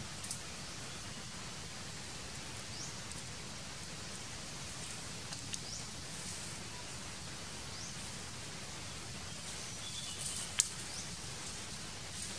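Steady hiss of natural outdoor ambience, with a faint short rising chirp every two or three seconds and a single sharp click about ten and a half seconds in.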